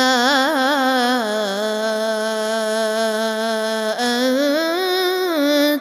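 A man's solo chanted Quran recitation, drawing out a long melodic vowel on 'mā anta'. The note wavers in an ornament at first and then holds steady. After a brief break about four seconds in, a second held phrase rises and falls in pitch.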